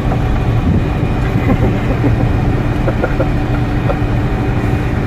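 A steady low mechanical hum with a couple of faint steady tones running through it, like a vehicle's motor running.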